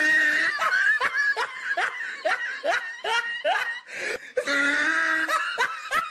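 A person laughing: a long run of short rising 'ha' notes, about two or three a second, with a longer held note at the start and another near the end.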